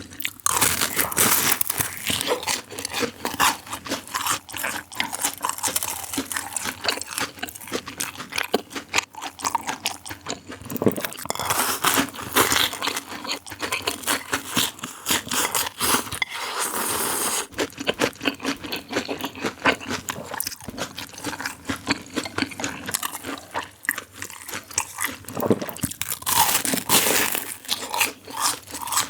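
Close-miked eating: irregular crunching bites and chewing of crisp food.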